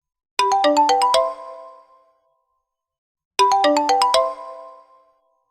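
Mizu phone ringtone: a short bright tune of about eight quick notes, played twice about three seconds apart, each time ringing out and fading.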